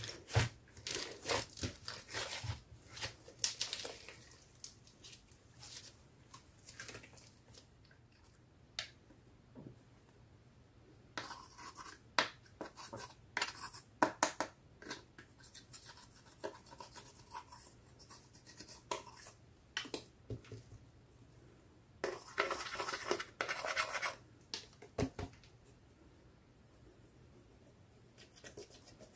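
Slime squeezed by hand at first, with dense sticky clicks and pops, then a small metal-tipped tool scraping pressed eyeshadow and glitter out of a plastic palette, a dry scratching that comes in short patches with scattered clicks between.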